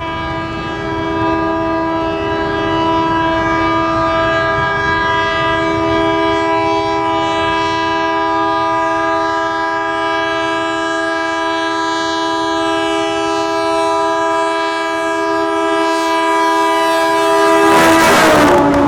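Horn of an Indian Railways WDM-3A diesel locomotive held in one long, unbroken, loud blast of several tones sounding together. Near the end the locomotive passes close by: the horn's pitch drops and a loud rush of engine and rolling noise comes in.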